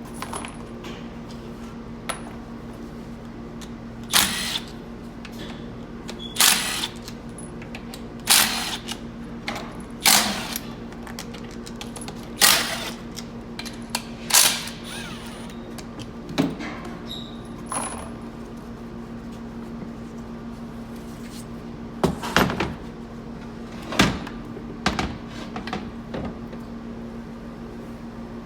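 Oil-pan bolts being taken out of an automatic transmission: about a dozen short, sharp bursts of tool and metal noise, each under half a second, roughly every two seconds, over a steady hum.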